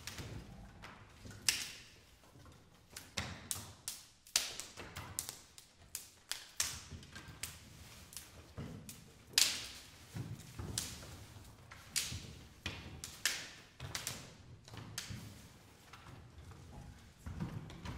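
Dry twigs and branches struck and broken by hand in a percussion performance: an irregular run of sharp cracks and taps, one or two a second, with softer knocks between them. The loudest crack comes about halfway through.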